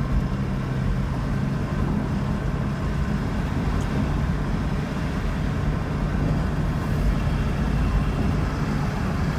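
Toyota Prius driving, heard from inside the cabin: steady road and tyre noise with a low, even hum. No grinding is heard, a sign that the newly replaced wheel bearing is running quietly.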